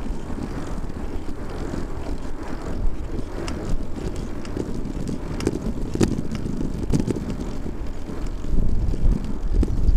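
Wind rushing over the microphone of a bicycle-mounted camera while riding, with a steady low road rumble. A few sharp knocks come through, the loudest about six seconds in.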